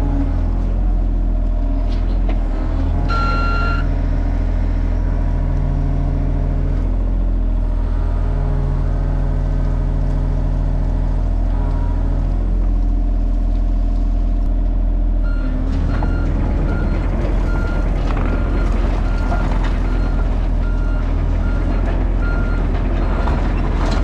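John Deere 35G mini excavator's diesel engine running steadily under load, with one short beep about three seconds in. About halfway through the engine noise grows rougher, and an alarm starts beeping a little more than once a second.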